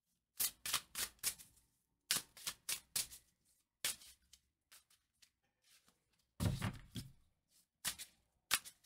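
Tarot deck being shuffled by hand: runs of quick card clicks and slaps, in several bursts with short pauses between.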